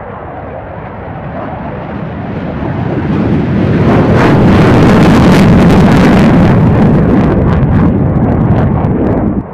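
F-15E Strike Eagle's twin afterburning jet engines at full power on takeoff, the jet noise swelling over the first few seconds to its loudest in the middle, with crackling through the second half, before cutting off suddenly at the end.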